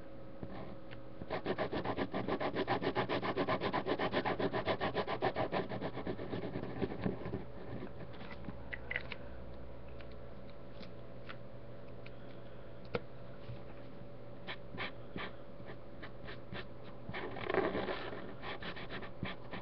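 Marker tip scribbling rapidly back and forth on paper, colouring in, for about six seconds, then scattered light strokes and taps.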